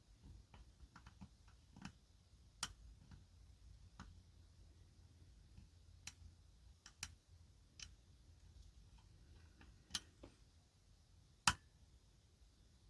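Faint, irregular metallic clicks of a lock pick working the pins of a pin-tumbler challenge lock held under hard tension, about a dozen scattered clicks, the sharpest one near the end.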